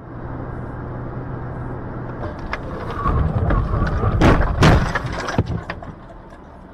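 Road and engine noise inside a car with a dashcam, growing louder after about two seconds. About four seconds in come two loud bangs of a collision with the car ahead, then a few smaller knocks.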